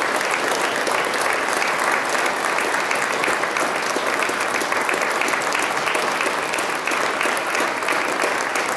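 Audience applauding, many people clapping without a break.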